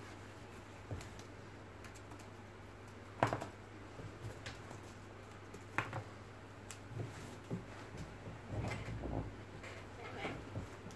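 A red lory moving about and playing on a wooden desktop: irregular light taps and clicks of its feet, beak and a small toy on the wood, the sharpest about three seconds in and a quick flurry later on.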